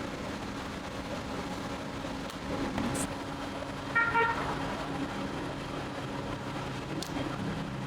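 Steady low machine hum, with a short horn-like toot about halfway through and a couple of faint clicks.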